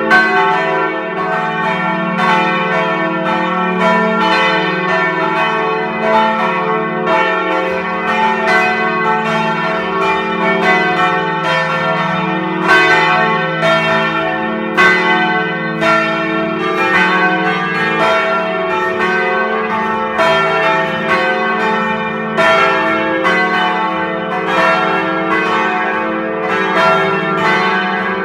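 Several church bells pealing together, struck in quick, overlapping succession so that the strokes run into one another, over a steady deep hum from the larger bells.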